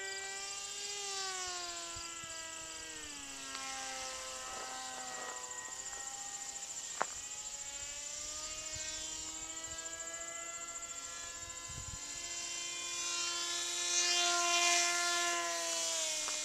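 Hobbyzone Aerobird RC plane in flight, its brushed Speed 400-size ferrite motor driving a 6x3 propeller: a steady whine whose pitch drops a few seconds in and then climbs back. It grows louder near the end as the plane comes in low and close. A single sharp click comes about seven seconds in.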